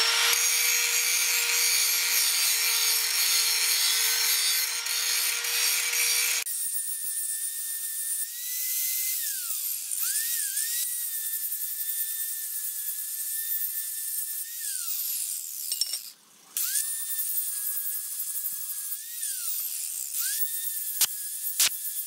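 Corded angle grinder grinding the edge of a steel tube. Its whine dips and recovers several times as it bears on the metal, with a short break about 16 seconds in.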